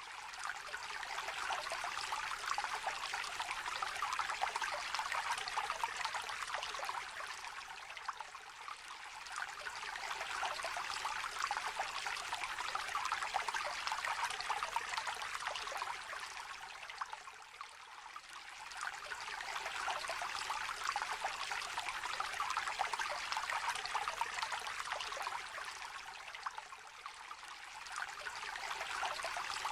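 Small river trickling steadily, a continuous babble of running water that eases off briefly three times and swells back.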